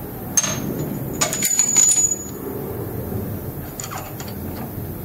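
Small steel tools clinking as they are handled and fitted into a machine chuck: a sharp clink just under half a second in, then a cluster of clinks with a bright ringing note lasting to about two seconds in, and a few lighter clicks near the end, over low, steady background noise.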